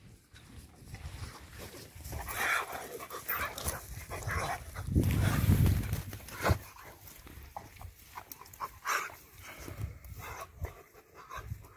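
Two dogs, an Anatolian shepherd dog and an American Staffordshire terrier, play-fighting: irregular dog noises and scuffling, loudest about five to six seconds in.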